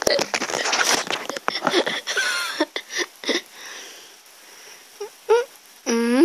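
Hand rubbing a cat's fur against a blanket: scratchy rustling for the first three seconds or so. Two short vocal sounds come about five seconds in, and a drawn-out voice sound rising then falling in pitch starts near the end.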